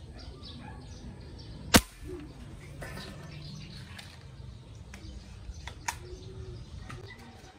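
A homemade fishing spear gun fires once, about two seconds in: a single sharp crack, the loudest sound here. A few faint small clicks follow near the end.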